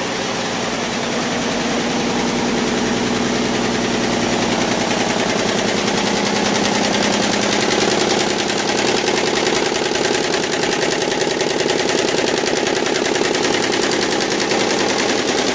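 YBD164 quilting embroidery machine running and stitching: a fast, even clatter of needle strokes over a steady mechanical hum.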